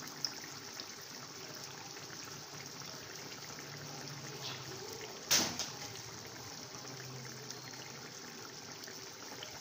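Thick prawn-and-tomato gravy boiling in an aluminium pot, a steady bubbling. A single sharp knock sounds about five seconds in.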